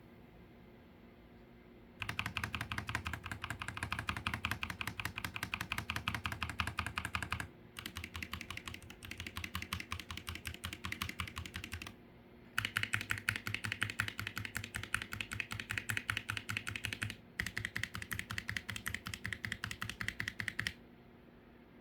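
Stabilized keys on a Keychron K3 HE low-profile magnetic-switch keyboard on a desk mat, pressed rapidly and repeatedly. The clicks come in four runs of several seconds each, with short pauses between them.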